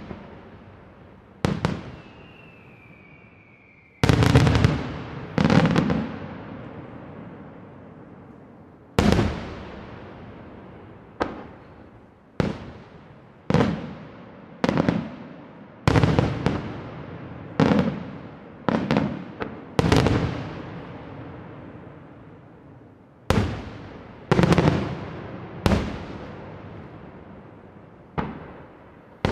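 Aerial firework shells bursting one after another, irregularly every one to two seconds, each a sharp bang trailing off in a rolling echo. About four seconds in, a thin whistle falling in pitch leads into a loud pair of bursts.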